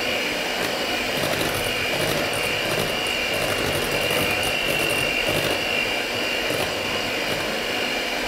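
Handheld electric mixer running steadily, its twin beaters churning a thick butter and egg-yolk batter in a ceramic bowl: a constant high motor whine over a steady churning noise.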